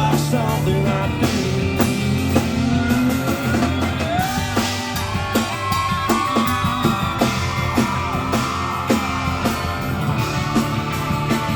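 Live country band playing an instrumental passage: a lead electric guitar with bending notes over steady bass and drums, heard loud through a crowd recording.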